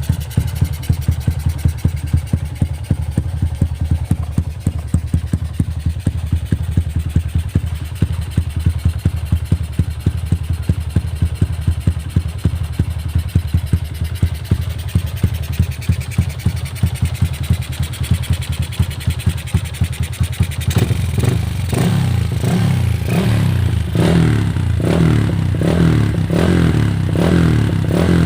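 Yamaha LC135 single-cylinder four-stroke with a 4 mm jackrod, running through a Yoshimura tri-oval exhaust: a steady, even idle, then from about three-quarters of the way through, repeatedly blipped with short revs.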